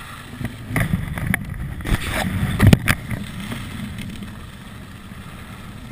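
Skis scraping and chattering over hard groomed snow, with wind rushing over the microphone. A loud thump about two and a half seconds in, the skis landing off a terrain-park jump, then a smoother run.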